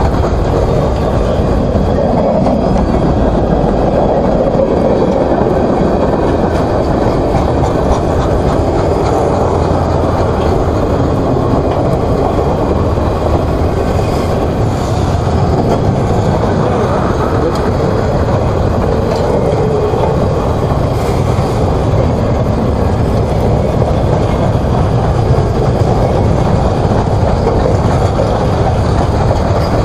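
A CSX mixed freight train's cars (boxcars, covered hoppers, tank cars and flatcars) rolling past at close range: a steady, loud rumble of steel wheels on the rails.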